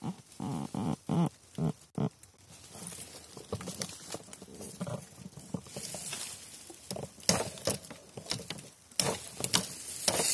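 Dry bamboo leaves and thin stalks rustling, crackling and snapping as someone pushes through a bamboo thicket. The crackles come thicker near the end. In the first couple of seconds there are a few short grunt-like vocal sounds.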